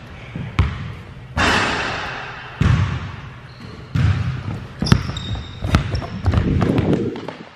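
A basketball dribbled on a hardwood gym floor: a string of separate bounces, with a few short sneaker squeaks about five seconds in.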